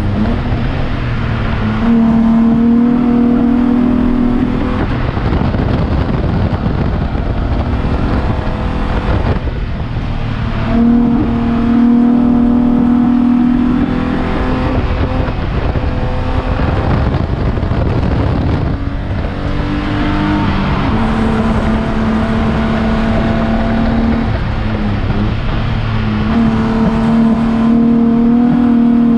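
Onboard sound of a BMW E36 Spec3 race car's straight-six at racing speed, heard from the cockpit. The engine is held at high revs for stretches of a few seconds and drops away in between, over road and wind noise.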